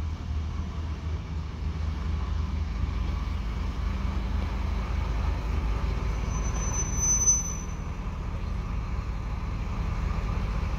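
Diesel engine of an Infranord IMV 100 track measuring trolley running with a steady low rumble as it rolls slowly in to a stop. About seven seconds in, a brief high squeal rises over it.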